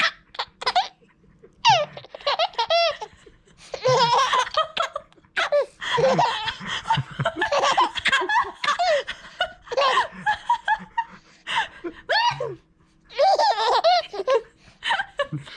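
Baby laughing hard, with bursts of high-pitched belly laughter coming again and again with short breaths and pauses between them.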